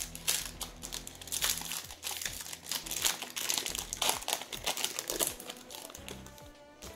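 Foil wrapper of a Yu-Gi-Oh! booster pack crinkling and crackling in irregular bursts as it is handled and opened, easing off near the end.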